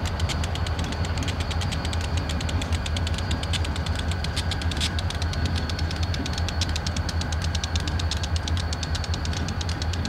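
Diesel-electric freight locomotive engines running steadily with a strong low drone and a fast, even ticking over it, with one sharper click about halfway through.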